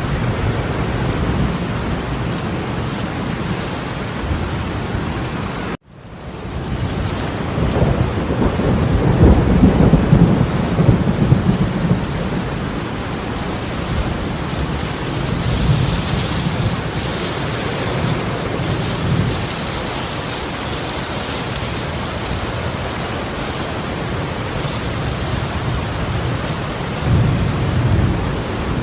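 Torrential rain pouring down steadily as a dense hiss. About six seconds in the sound cuts out abruptly and fades back in, and a louder low rumble swells between about eight and twelve seconds, with another briefly near the end.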